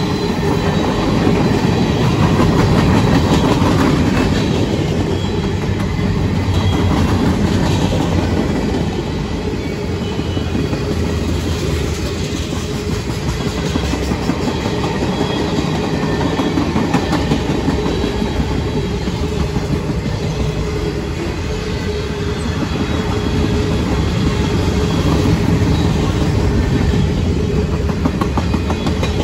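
CSX mixed freight train's cars rolling past close by: a loud, steady rumble of steel wheels on the rails.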